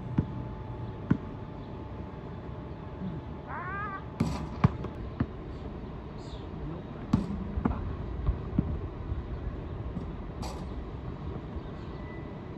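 Basketball bouncing on an outdoor asphalt court: irregular dribbles and thuds of play. About three and a half seconds in comes a short rising squeal.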